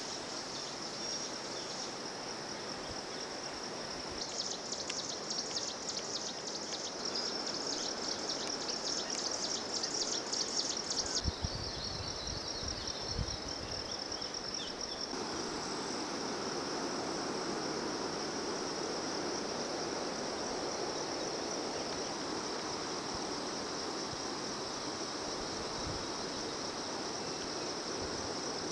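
Insects buzzing in a steady high drone, joined from about four to eleven seconds in by a second insect's rapid pulsing chirr, over a steady outdoor hiss. A few low thumps come around eleven to thirteen seconds in.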